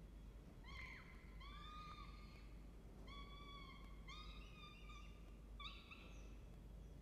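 Peregrine falcon chicks giving faint, drawn-out whining begging calls, about five in a row, while being fed.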